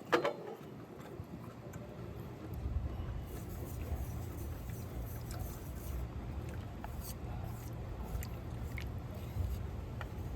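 Pan sauce simmering, with small crackles and pops from the bubbling liquid and melting butter. A single knock at the very start.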